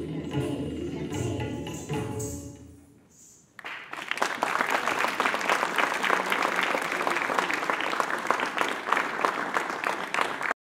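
Kathak accompaniment music fades out over the first three seconds. About three and a half seconds in, an audience breaks into steady applause, which cuts off abruptly near the end.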